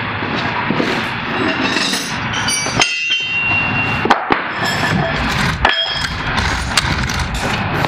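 Metal clanking and clinking as parts and hand tools knock against the steel of a Western MVP3 snowplow blade while its wing kit is fitted. The sound is a dense run of knocks with a few short ringing clinks.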